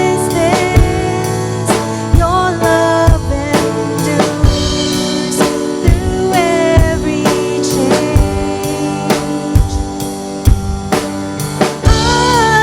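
Worship song performed by a band: a singer's melody over sustained chords, with a drum kit keeping a steady beat.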